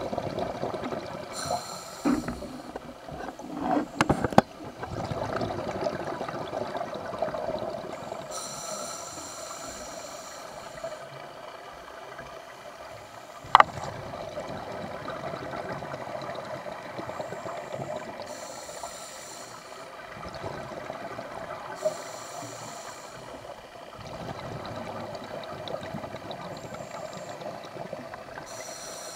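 Scuba diver's breathing heard underwater: a hiss from the regulator about every eight to ten seconds and gurgling rushes of exhaled bubbles, over a steady watery murmur. A few sharp clicks, the loudest about halfway through.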